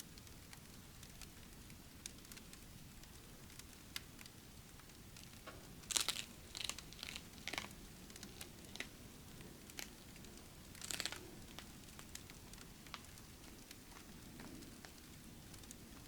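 Short bursts of crinkling or rustling, about six seconds in and again about eleven seconds in, over a faint steady hiss with scattered sharp ticks.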